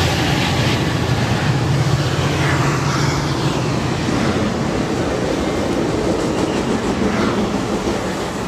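Passenger train passing underneath and pulling away: a steady low hum and wheel-on-rail noise that slowly fade.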